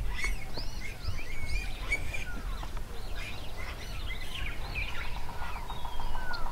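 Several wild birds calling, a busy mix of short chirps and whistles that rise and fall, over a low steady rumble. About five seconds in, a steady high tone joins them.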